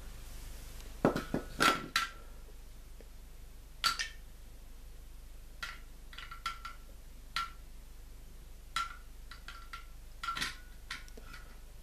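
Hard plastic toy pieces clicking and knocking together as they are handled, in irregular single taps and short clusters, some with a brief ringing tone.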